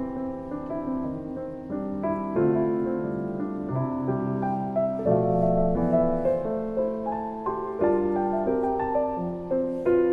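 Background music: a gentle solo piano playing slow, sustained chords and melody.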